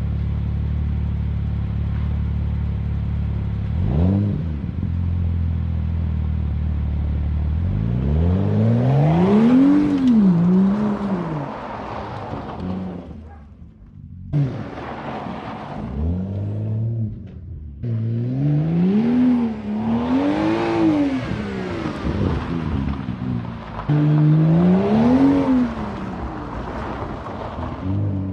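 Car engine idling steadily with one quick throttle blip, then revving up and down again and again as the car is driven hard. The sound drops out sharply twice in the middle.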